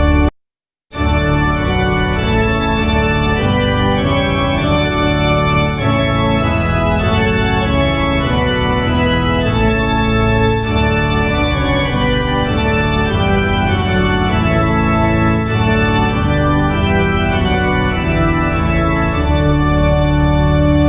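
Organ playing a hymn tune in slow, sustained full chords, one stanza starting after a brief silence just under a second in.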